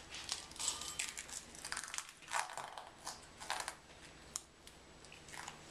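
Dry breakfast cereal being crushed between fingers, crackling and crunching in short irregular bursts.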